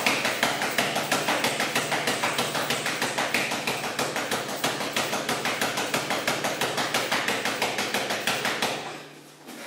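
Rapid chain punches landing on a free-standing punching bag: a fast, even run of thudding hits, one fist after the other, that stops about nine seconds in.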